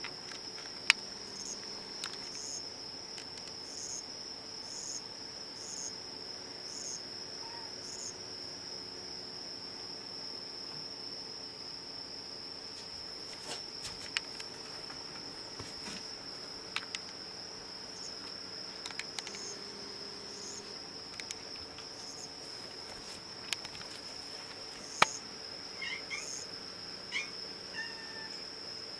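Small cricket singing one continuous high trill that doesn't break. A few sharp clicks stand out above it, and faint cat meows begin near the end.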